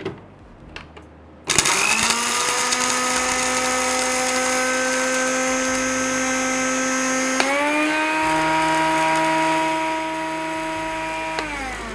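Electric grinder motor with a small dry-grinding jar, pulverising whole cloves, green cardamom, nutmeg and mace. It switches on about a second and a half in, winds up to a steady whine, jumps to a higher pitch about halfway through, and winds down near the end.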